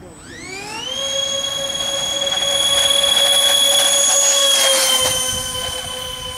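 Radio-controlled model Airbus A380's four ducted-fan engines spooling up to full throttle with a whine that rises sharply in the first second. A steady high whine follows as the model rolls down the runway on its takeoff run. Near the end the pitch drops slightly and it grows fainter as the model moves away.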